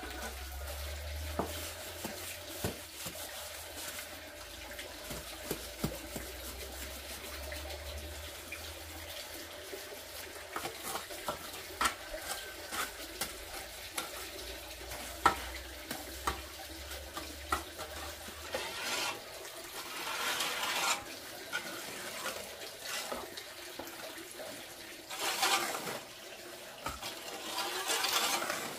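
A hand trowel smoothing wet cement mortar, giving wet scraping and squelching with scattered small taps. Longer scraping strokes come around two-thirds of the way in and again near the end.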